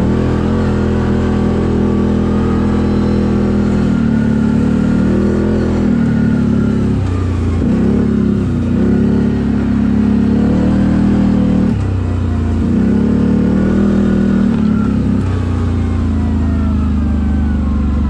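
CFMoto CForce 1000 ATV's V-twin engine through an Akrapovic exhaust, running under load while riding. The revs rise and fall with the throttle, with several short sharp drops in pitch that pick back up.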